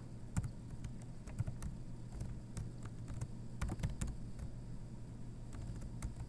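Computer keyboard keys being typed, irregular separate clicks with short pauses between them, over a faint steady low hum.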